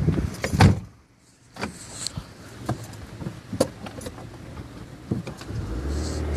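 A car creeping slowly, heard from inside the cabin at its side window, with several sharp knocks and clicks. The sound drops nearly away for a moment about a second in.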